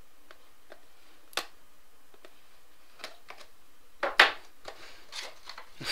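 Hands handling a trading-card box and its packs: scattered light clicks, a sharp click a little over a second in, and a louder brief rustling scrape about four seconds in.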